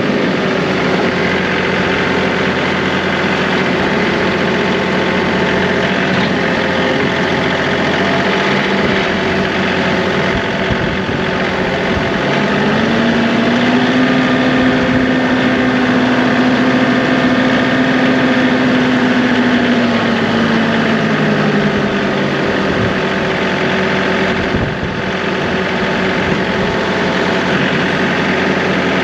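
John Deere 2038R compact tractor's diesel engine running steadily. Its note rises about twelve seconds in, holds for several seconds, then drops back around twenty seconds.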